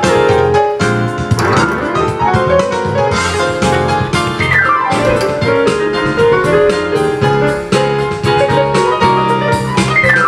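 Yamaha portable keyboard played with both hands through its built-in speakers in a piano voice: chords over bass notes, with a sweeping run up the keys about a second in and glissandi down the keys near the middle and at the end. It is being played as a test after a repair for a no-power fault.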